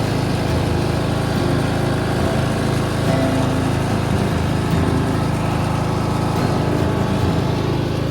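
Riding lawn mower's engine running steadily as the mower is driven along.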